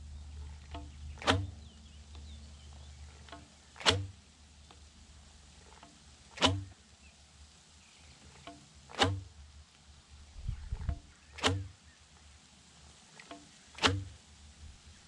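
Cobra throwing stick swung hard six times to fling boilies, each throw a sharp whoosh, about one every two and a half seconds, with faint ticks between throws.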